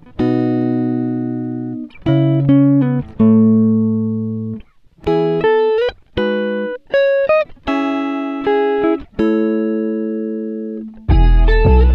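Background music: a guitar plucking single notes and short chords, each ringing out and fading. A fuller, louder passage with deep bass comes in near the end.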